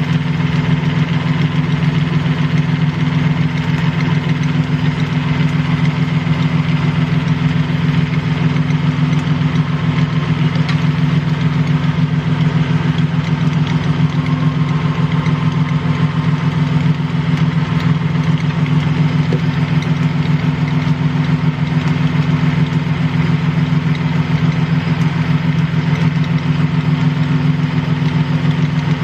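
Toyota Tacoma engine idling steadily with a light ticking, knocking noise, which the owner traces to a failing idler pulley on the accessory belt.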